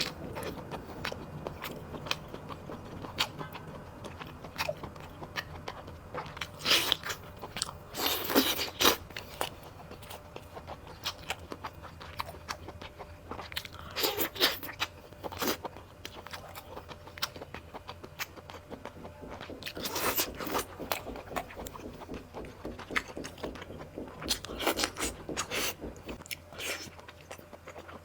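Close-miked eating sounds: a person chewing and biting food, with short bursts of mouth noise a few seconds apart.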